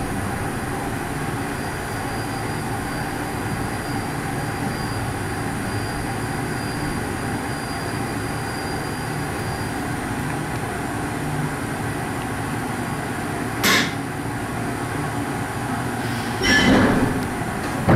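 Skyrail suspended monorail gondola heard from inside the car, running with a steady hum as it moves through the station on its linear motor, released from the haul cable. A brief sharp noise comes about three-quarters of the way through, and a short squeal near the end.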